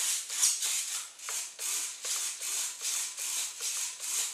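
Small radio-control servos whirring in a quick run of short bursts, two or three a second, as they drive the tape-hinged elevator and rudder back and forth through barbecue-skewer pushrods.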